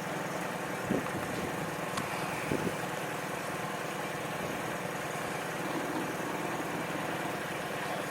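Boat's motor running steadily as the boat moves along, with a couple of small knocks about a second and two and a half seconds in.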